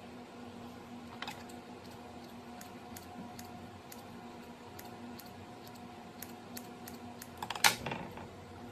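Light scattered clicks and snips of scissors cutting rolled dough on a wooden board, with a louder clatter of clicks near the end, over a faint steady hum.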